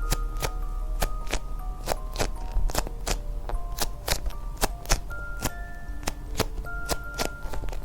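Background music: a light music-box-style melody of short plucked notes over a steady clicking beat, about three clicks a second.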